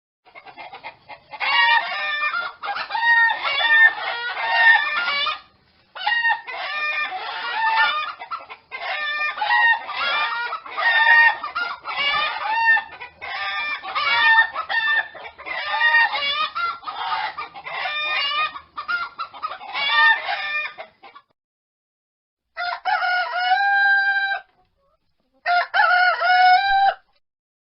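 Chickens clucking and calling almost without a break for about twenty seconds, then a rooster crowing twice, two long held calls near the end.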